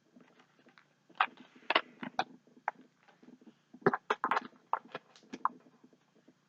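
Packaging being handled during an unboxing: a run of irregular crinkles, taps and clicks, with the busiest clusters about a second in and again around four seconds in.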